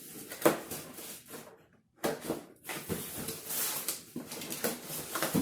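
Packaging being handled and opened: irregular rustling, crinkling and scraping, with one sharp knock about half a second in and a brief drop to silence shortly before the midpoint.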